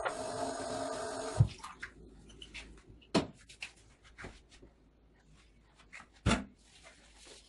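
A steady running noise cuts off with a thump about a second and a half in. Then come scattered light clicks and two sharp knocks as kitchenware and a plastic colander are handled at a stainless steel sink.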